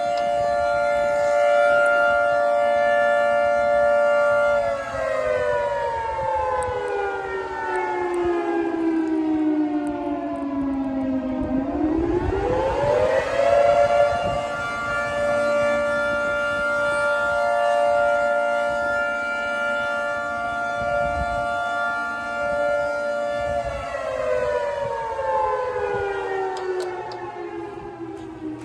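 Fire station siren sounding: a loud steady wail that winds down in pitch, rises back up, holds steady again, then winds down once more near the end.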